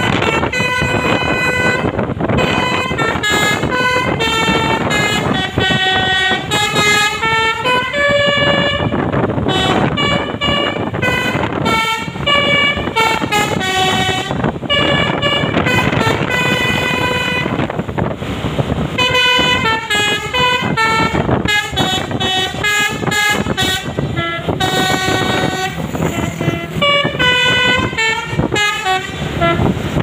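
Basuri telolet horn on a tour bus playing a quick tune of pitched toots, note after note with a few short gaps, over engine and road noise.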